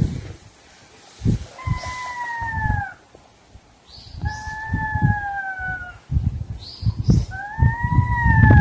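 Domestic cats in a territorial standoff yowling: three long, drawn-out yowls, each lasting about a second and sagging in pitch at the end.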